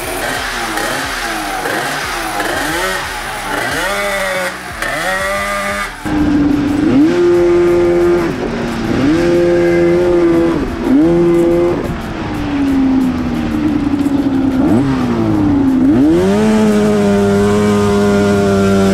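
Two-stroke engine of a home-built Honda Odyssey ATV with an expansion chamber: revved in quick blips at first, then, from about six seconds in, pulling under load, its pitch rising and holding, dropping and rising again several times. The builders find it boggy under load and blame either the clutching or tyres too big for it.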